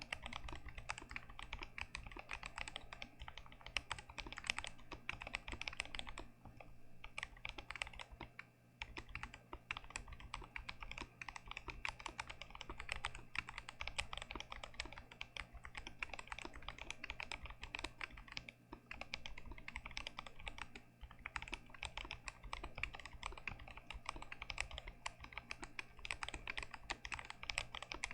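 Continuous typing on an unmodded GMMK Pro mechanical keyboard with Gazzew Boba U4T tactile switches: a fast, dense stream of keystrokes, broken by a few short pauses.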